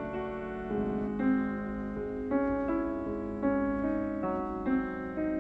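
Slow piano music, a new note or chord about every second.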